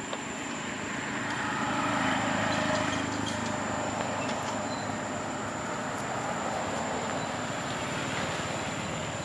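A motor vehicle passing on a road, a steady rumble and hiss that swells about two seconds in and then holds.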